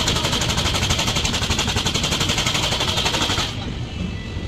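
Express train passing through a station at speed: a fast, regular metallic clatter, about a dozen beats a second, over the low rumble of the coaches. The clatter cuts off abruptly about three and a half seconds in, and the rumble of the passing train goes on.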